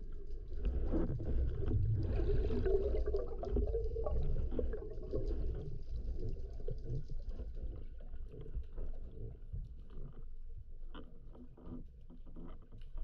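Muffled underwater sound heard through a camera's waterproof housing: low rumbling water movement and gurgling, with scattered faint clicks, growing quieter over the last few seconds.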